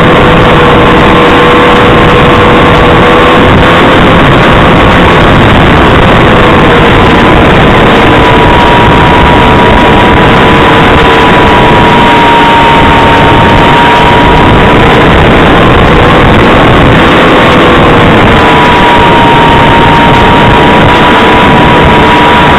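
Loud, steady rushing hiss with a thin whine near 500 Hz that drifts slowly up and down in pitch, as picked up on board and sent over a 5.8 GHz FPV video link's audio channel: wind noise and the SkySurfer 1400's electric pusher motor in flight.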